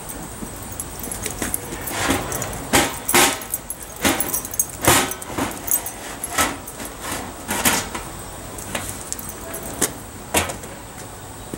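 Metal pots clanking and scraping as a stainless steel stockpot is lifted off a steel-drum rocket stove and set down on a table with other pots: a string of irregular sharp clinks and knocks.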